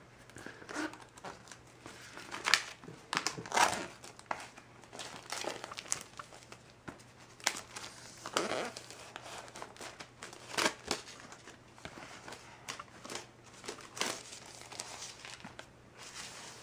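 Thin plastic shrink-wrap being peeled and pulled off a small cardboard box, crinkling and rustling irregularly, with louder crackles every few seconds.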